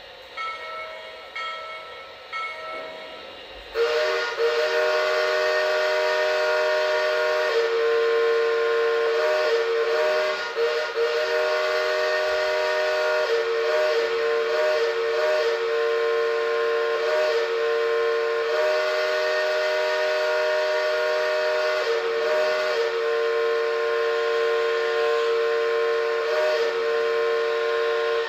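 Multi-tone train whistle sounding a chord: a few short, softer toots, then about four seconds in a loud blast held long and nearly unbroken, with brief gaps.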